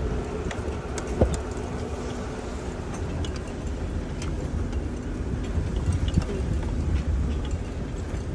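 A vehicle crawling over a rocky dirt trail: a low engine rumble with a faint steady hum, and scattered clicks and knocks from rocks and branches. The sharpest knock comes about a second in.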